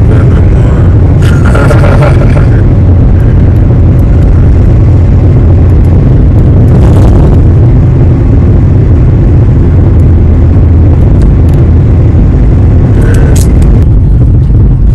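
Loud, steady low rumble of a moving vehicle, with brief higher-pitched sounds about two seconds in and again near the end.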